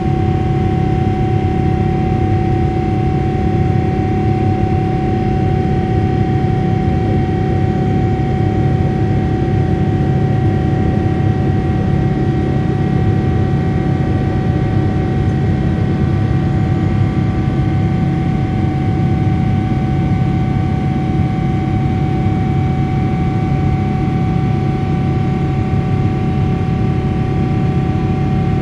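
Boeing 777-300ER's GE90 turbofan heard from inside the cabin during the climb: a steady, loud roar with a constant whine over it.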